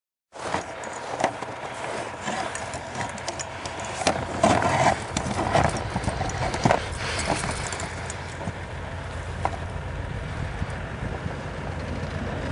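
Distant approaching freight train, a steady low rumble that grows louder near the end, with scattered irregular clicks and knocks over it in the first half.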